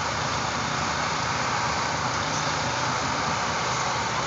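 Large vehicle engine running steadily, an even drone without revving.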